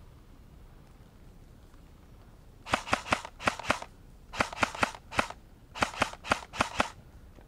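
Airsoft electric gun (M4-type AEG) firing three quick strings of about five sharp shots each, starting about three seconds in.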